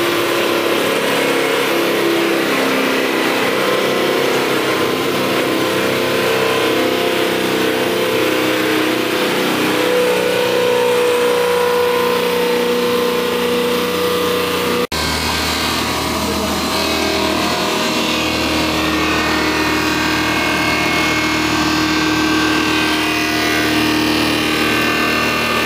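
Electric-motor-driven wood sawdust making machine running under load while milling a log into sawdust: a steady mechanical whine and hum with the noise of cutting. About halfway through there is a sudden cut, after which the hum is deeper and heavier.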